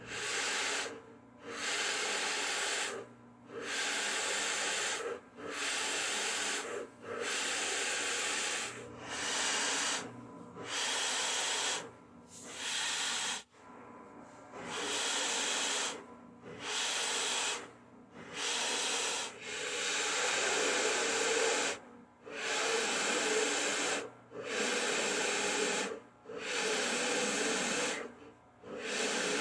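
Drill press with a 1¼-inch Forstner bit boring holes in maple at its lowest speed, 620 RPM. The cutting hiss comes in repeated spells of one to two seconds, with short breaks between them.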